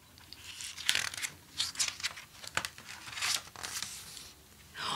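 Paper pages of a picture book being turned and handled: a string of short, dry rustles and crinkles at irregular intervals.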